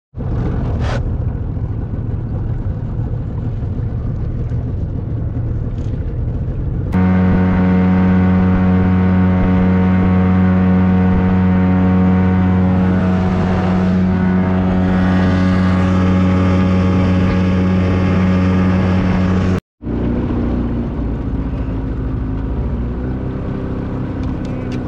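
Small boat's outboard motor running underway, with wind and water noise. About seven seconds in it gets louder and settles into a steady, even hum. That holds until a sudden brief dropout near twenty seconds, after which the rougher running returns.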